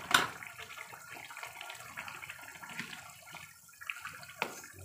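Thick tomato-based stew bubbling in a pan while a wooden spatula stirs through it, with a sharp knock just after the start and another near the end.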